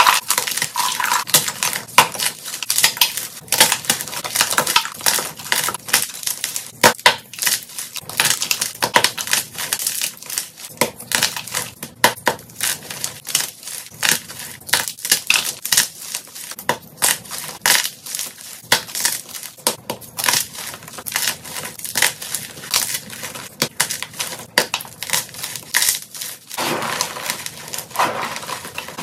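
Hands crushing and crumbling blocks of gym chalk: a fast, dense run of crisp snaps and crunches as the blocks break apart. Near the end it turns to a softer, steadier crumbling as the powder and small pieces are squeezed.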